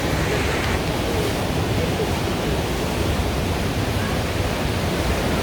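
Steady rush of Düden Waterfall, water falling and churning.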